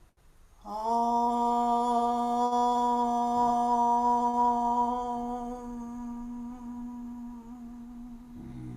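A woman chanting a long Om on a single steady pitch, starting about a second in. It grows softer in its second half as the chant closes toward the hum.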